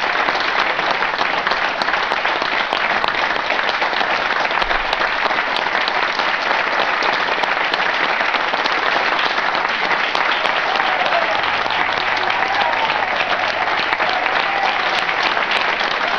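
Audience applauding steadily for the performers' bow, with voices mixed in.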